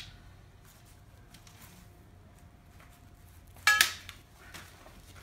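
Metal frame tubes of a snap-button balloon arch frame clinking together: a sharp double clink with brief ringing about three and a half seconds in, as sections are joined.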